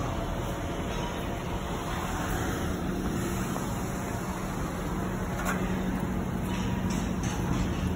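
City street traffic noise, steady, with a low hum that holds through the middle and a few short clicks in the second half.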